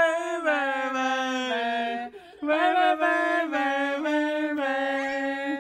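A voice holding long, wavering sung or howled notes, with a short break about two seconds in and a few steps in pitch after it.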